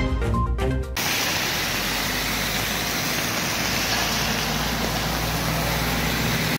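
Background music stops about a second in, giving way to a steady, even rushing noise with a faint low hum underneath.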